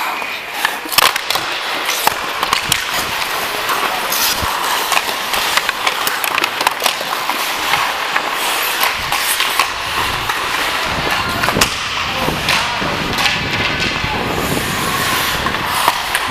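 Ice hockey skates scraping and carving on rink ice during play, with short sharp clacks of sticks and puck scattered throughout.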